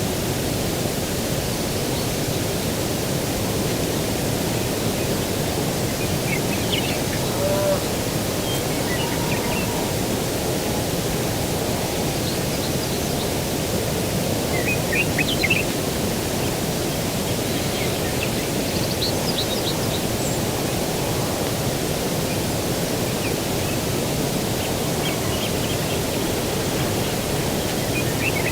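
Steady low rushing of breeze and distant ocean surf, with a songbird's brief high chirps breaking in a handful of times.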